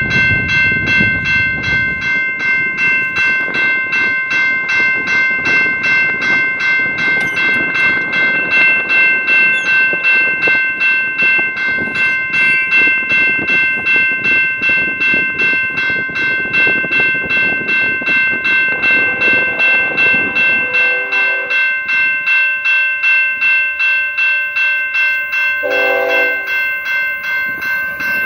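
Railway grade-crossing bell ringing, an evenly repeating strike over a few ringing tones that keeps going without a break: the crossing warning is active for an approaching Canadian Pacific freight train, whose low rumble lies underneath.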